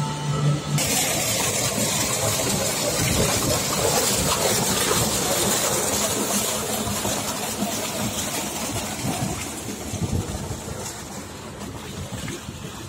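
Water pumped by an electric motor pump rushing and splashing out of the outlet into a concrete irrigation channel, a loud steady rush that fades near the end. For the first second the pump motor's steady electric hum is heard, then it cuts off abruptly as the water sound takes over.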